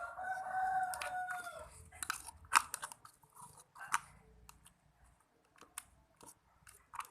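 Freshly made slime being stirred and kneaded, giving sticky, irregular squelching clicks and pops. For the first second and a half a drawn-out, steady pitched call sounds over it.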